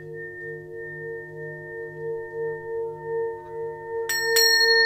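Singing bowl ringing with a steady low tone that wavers in a slow pulse, about three beats a second. About four seconds in, a pair of tingsha cymbals is struck twice in quick succession and rings on in high, bright tones over it.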